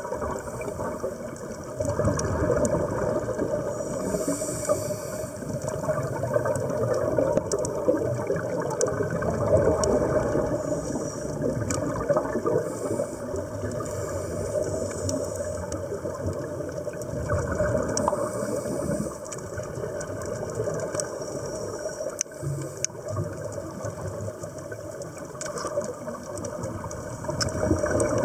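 Underwater ambient noise: a steady muffled rush of water, with bursts of bubbling from scuba divers' exhaled air every few seconds.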